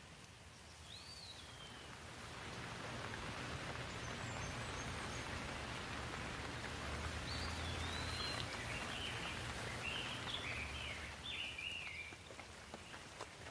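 Rain falling, its rushing noise swelling louder for several seconds before easing again, with birds chirping several times over it.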